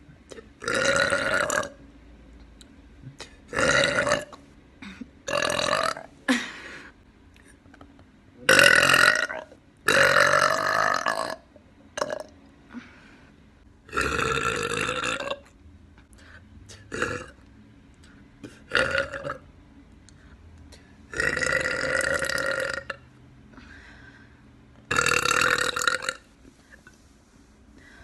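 A woman belching over and over: about ten loud burps, most lasting around a second, with quiet gaps of a second or two between them.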